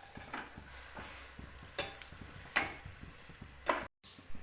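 Grated carrot and khoya halwa mixture sizzling in ghee as a spoon stirs it, with three sharp scrapes of the spoon against the pot. The sound cuts off abruptly near the end.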